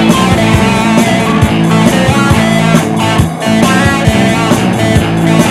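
Upbeat rock theme song with guitar and a steady beat, an instrumental stretch between sung lines.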